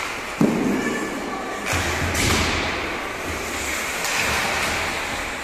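A loud thud about half a second in, an impact against the boards of an ice hockey rink during play, echoing in the arena, then a second, duller knock about two seconds in.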